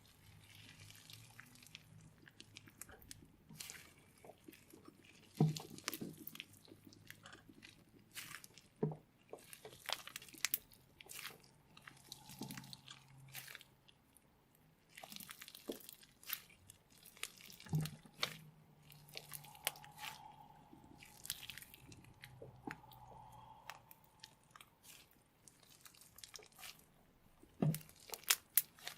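Slime mixed with orbeez water beads being worked by hand, giving irregular crackles, pops and small clicks, with an occasional louder knock.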